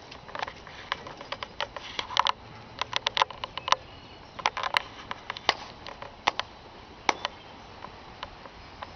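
Scattered sharp clicks and taps at an irregular pace, some in quick clusters, over a faint steady background.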